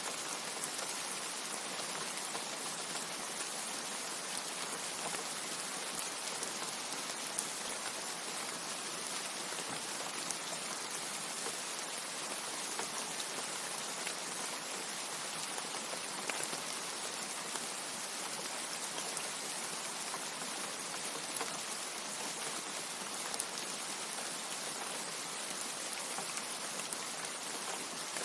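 Steady rain: an even hiss with scattered individual drops ticking through it, and no thunder.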